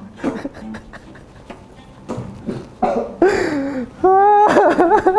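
A man gagging and groaning in disgust after swallowing a foul penalty drink of Thai tea mixed with mayonnaise. It is quiet at first with a few faint knocks, then there are louder wordless vocal sounds from about three seconds in.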